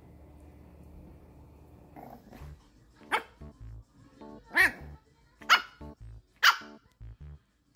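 Pomeranian puppy barking: four short, high-pitched yaps about a second apart in the second half, over background music with a steady beat.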